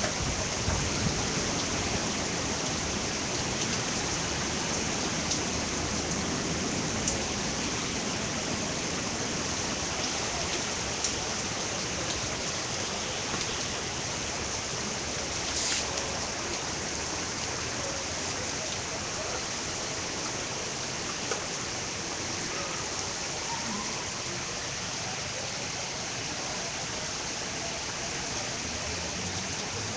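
Rain pouring down in a steady, even hiss, with a few small clicks.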